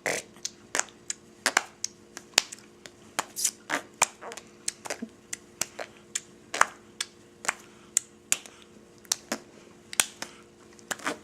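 A child making a string of sharp, irregular clicking noises, about two or three a second, some followed by a short hiss.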